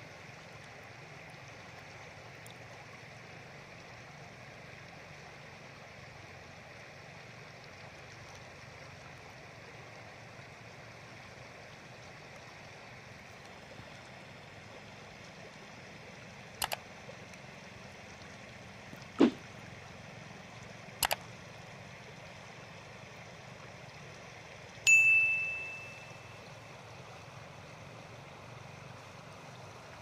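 Shallow river water washing steadily over a pebble bed. After about sixteen seconds a few sharp mouse-click sound effects come, then a bright bell ding that rings out for about a second; this is the sound of a subscribe-button overlay.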